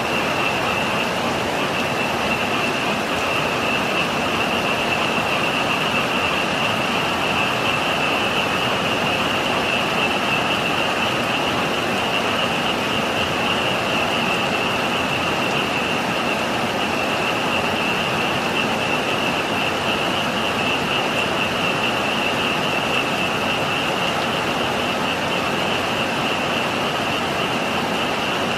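A dense chorus of frogs calling without pause, merging into one steady high-pitched drone, over the even hiss of heavy typhoon rain.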